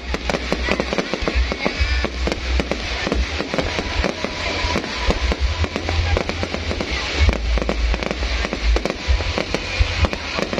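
Fireworks going off in a dense, unbroken barrage of sharp cracks and bangs over a steady low booming.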